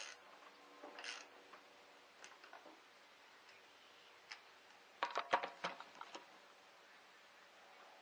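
Socket ratchet worked on a car battery terminal clamp: a couple of short metallic rattles near the start and about a second in, then a quick run of sharp metallic clicks about five seconds in.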